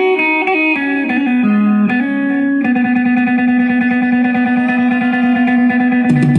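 Isan-style dance music led by an amplified plucked string instrument with a distorted, electric-guitar-like tone. It plays a quick melody of changing notes over a steady beat, then holds one long note from about two and a half seconds in, and lower notes join near the end.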